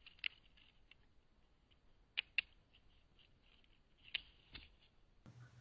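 Faint, scattered clicks and scratches of an animal's claws on a wooden pole as it climbs and clambers down. There is one click near the start, a close pair about two seconds in, and two more just after four seconds.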